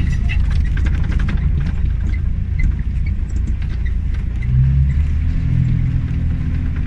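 Car engine and road rumble heard from inside the cabin on a dirt road, with light scattered rattles and knocks. A stronger engine hum comes in about four and a half seconds in.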